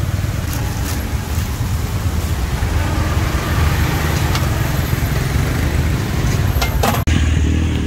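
Steady low rumble of street noise with a few scattered light clicks and clatter; the sound breaks off abruptly for an instant about seven seconds in.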